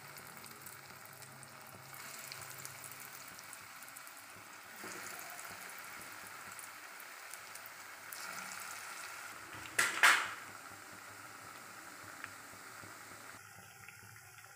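Breadcrumb-coated potato cheese rolls sizzling and bubbling in hot oil in a pan as they are added one by one, the sizzle growing louder in steps. A brief, loud double clatter about ten seconds in.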